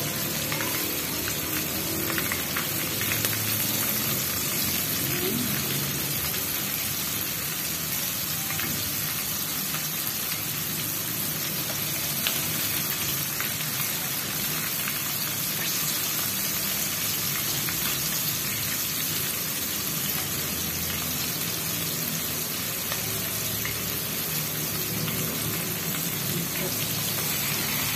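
Flour-coated chicken pieces deep-frying in hot oil in a wok: a steady sizzle with scattered pops and crackles.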